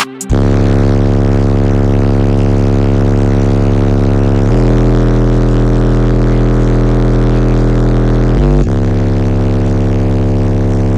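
Four Resilient Sounds Platinum 18-inch subwoofers, driven by a Taramps Bass 15k amplifier, playing loud deep bass inside the vehicle's cabin. Long held bass notes start suddenly and step to a new pitch about four and a half seconds in and again about eight and a half seconds in.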